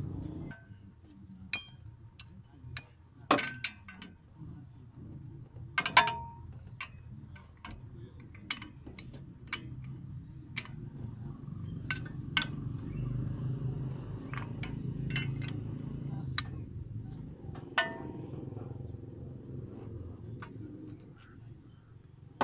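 Irregular metallic clinks and knocks as a brake caliper and spanners are handled while the caliper is refitted over the brake disc, with a few louder clanks among them.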